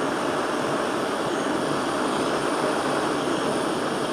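Large soldering torch flame burning steadily, a continuous even rushing noise, as it heats a silver ring's joint to make the solder run.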